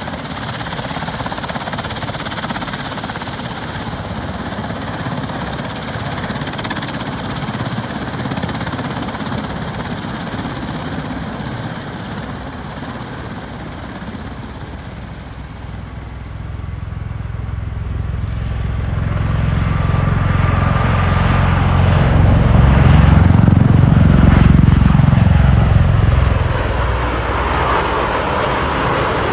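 Bell Boeing MV-22 Osprey tiltrotor's twin turboshaft engines and proprotors running steadily. From about halfway through, the sound builds to a loud peak as the aircraft takes off and climbs away, then eases slightly near the end.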